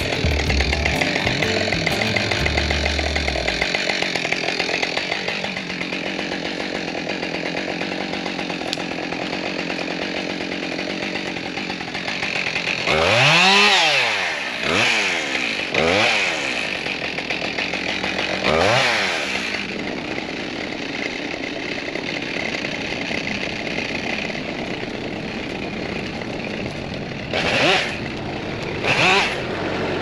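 Husqvarna 572XP two-stroke chainsaw cutting through dead fir, its engine held at a steady pitch under load. Around the middle it revs up and drops back about four times in quick succession, and twice more briefly near the end.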